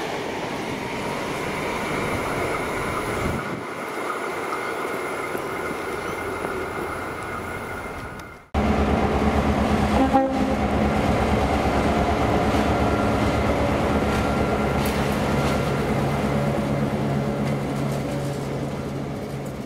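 Diesel-hauled trains passing: a train rumbling away, then after an abrupt cut about eight seconds in, the louder steady low drone of diesel locomotive engines with rail noise, as a locomotive transfer led by S-class diesel S317 goes by, fading out near the end.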